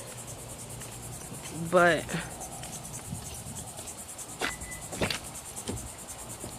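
Outdoor insect chorus, a steady high pulsing buzz, with a few light clicks in the second half.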